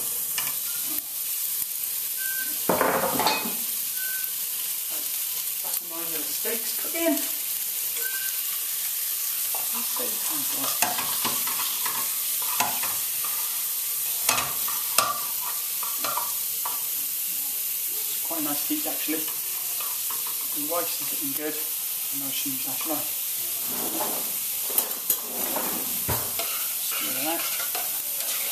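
Paprika-rubbed steaks sizzling in a hot frying pan, the sizzle starting suddenly as they go in. A wooden spatula scrapes and knocks them about in the pan now and then.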